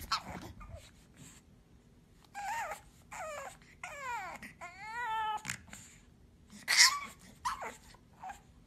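Pug puppy whining: a run of drawn-out high cries in the middle, each sliding or wavering in pitch. A few short sharp puffs of breath come around them, the loudest about seven seconds in.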